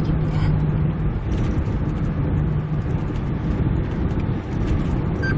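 Inside the cab of a Kia Bongo III truck cruising at highway speed: a steady engine drone mixed with tyre and road noise. A short high beep sounds right at the end.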